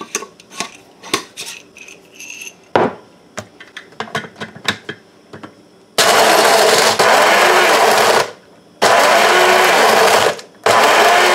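Dried cherry tomatoes clattering and tapping into a Mr. Coffee electric blade grinder, then the grinder running in three pulses of about two seconds, two seconds and one second as it grinds them to powder.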